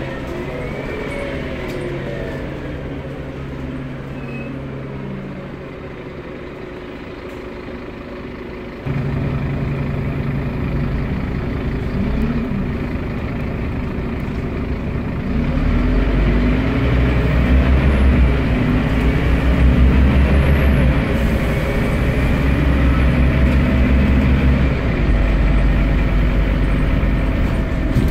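Scania CN230UB bus's nine-litre five-cylinder diesel heard from inside the saloon. Its pitch falls as it eases off for the first several seconds, then about nine seconds in it abruptly pulls harder. From about sixteen seconds on, a deep rumble and rising engine tones come in as the bus accelerates.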